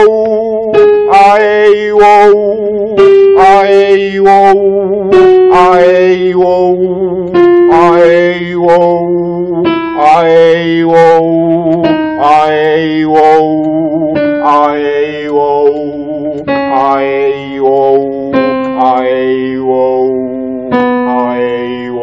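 A man singing a vocal warm-up, short vibrato notes on vowel syllables about two a second, over held digital piano chords. The chords step down in pitch every couple of seconds, carrying the exercise down the range.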